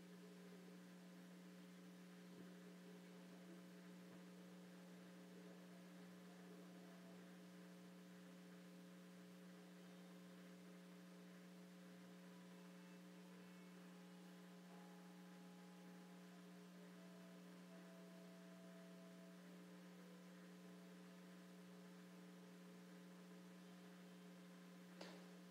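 Near silence: a steady electrical hum from the sound system, with one faint click near the end.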